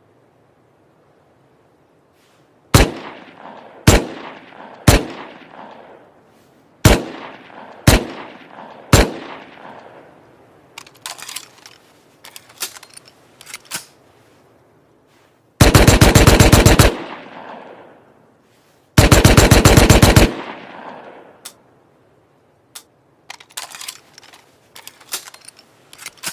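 Makeshift sound effect of a Thompson submachine gun: six single shots, each trailing off in an echo, then two rapid-fire bursts of about a second and a half each. Quieter clicks and rattles sit between the single shots and the bursts, and again near the end.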